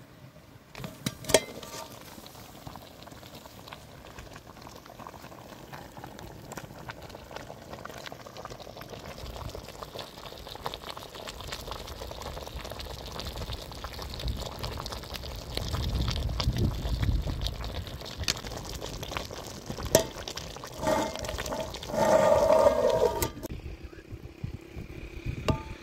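A steady watery liquid noise that slowly builds and swells about two-thirds of the way in, with scattered clicks and knocks and a brief louder clattering patch near the end.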